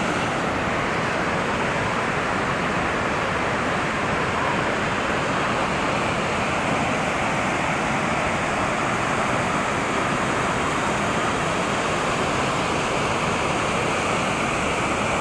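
Steady rush of water from a large waterfall, an even, unbroken noise.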